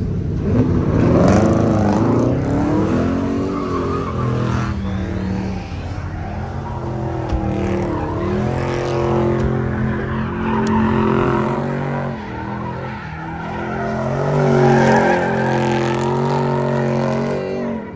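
Car engine revved hard and held at high revs while the tires squeal on the pavement, as in a sideshow burnout. The revs climb over the first couple of seconds and surge again near the end.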